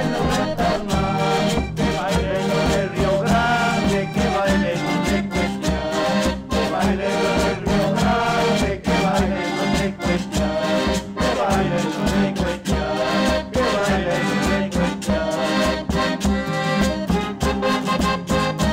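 Instrumental sanjuanito cumbaleño, an Andean dance tune with a melody over a steady bass beat.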